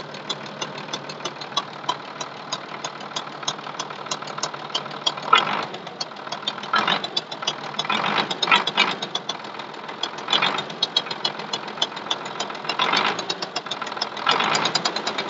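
Belarus MTZ-1221 tractor's six-cylinder diesel running with a rapid, regular knocking from the cylinder head, with several brief louder stretches. The knock is still there after the injector was replaced, and its cause is not yet known.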